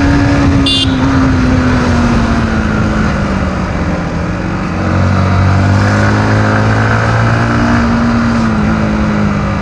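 Yamaha MT-15's single-cylinder 155 cc engine running under way. Its note falls slowly through the first half as the bike eases off, then a deeper, stronger note comes in about halfway and holds before easing near the end.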